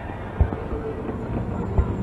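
Distant fireworks: two dull, low booms about a second and a half apart over a steady low rumble.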